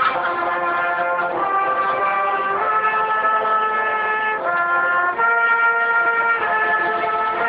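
School pep band's brass, trombones and trumpets, playing a tune in long held notes that change every second or two, heard from inside the section.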